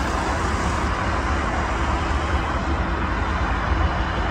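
Steady road traffic noise with a low engine rumble, a double-decker bus driving away along the road.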